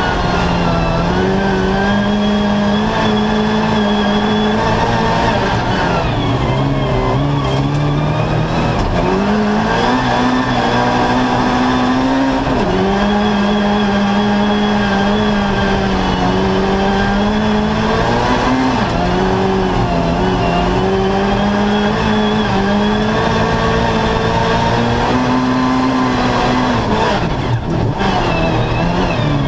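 Opel Corsa rally car's engine heard from inside the cabin, running hard under load. Its pitch climbs and falls again and again as the car accelerates, lifts and shifts between second and third gear, with a short drop near the end.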